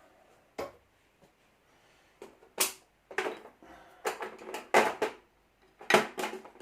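A string of irregular clicks and knocks, sparse at first and coming thicker after about two seconds: small hard objects being handled and set down.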